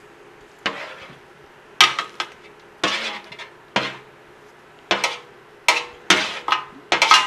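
A metal spoon scrapes roasted vegetables off a metal baking tray into a stainless steel sauté pan. It gives about ten sharp metallic clanks and scrapes at irregular intervals, the thickest near the end.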